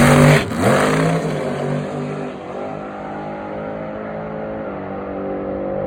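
Car engine at high revs, its note falling in pitch and dropping in level about half a second in, then running on fainter and steady as the car moves away.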